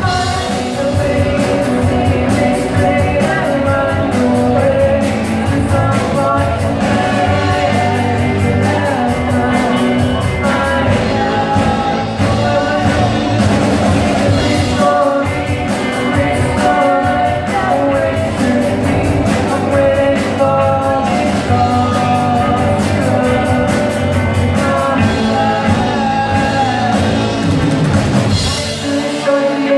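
A rock band plays live, with singing over electric guitar and drums. The bass and drums drop away near the end.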